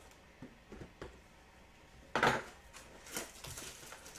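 Retail trading-card packaging being cut open and handled: a few light clicks, then a sharp rasping cut or rip about two seconds in, followed by lighter scraping.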